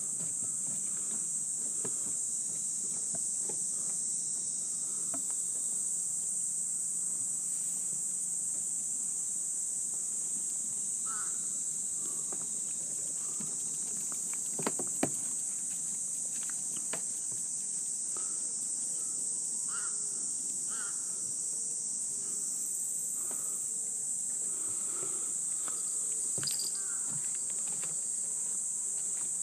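Steady, high-pitched chorus of insects buzzing without a break, with a couple of faint clicks about halfway through.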